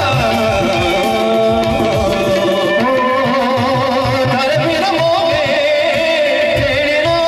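A Sufi song performed live by a band: male singing over keyboard and percussion, with a steady beat underneath.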